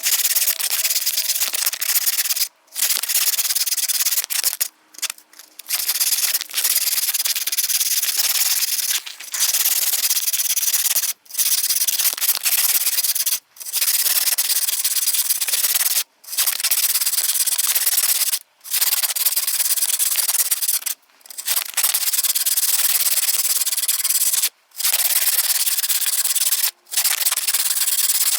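Hand sanding of a wooden comb: abrasive rubbing on wood in steady spells of two to three seconds, each broken by a brief pause.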